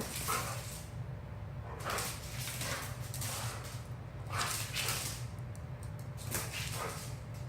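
Dogs playing together: about five short rough bursts of huffing and scuffling, over a steady low hum.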